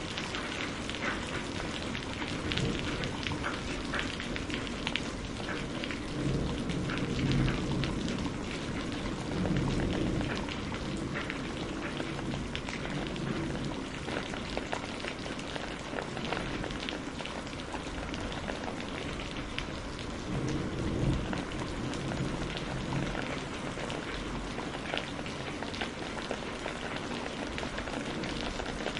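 Steady heavy rain with many small drop clicks, and two low rolls of distant thunder, the first about a quarter of the way in and the second about two-thirds in.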